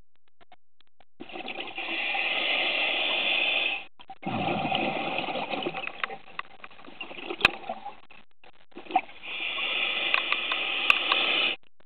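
A scuba diver's breathing through the regulator, heard underwater: a long rushing breath about a second in, a burst of bubbling exhaust right after it, and another long rushing breath in the second half, with short quiet gaps between. A couple of sharp clicks stand out in the second half.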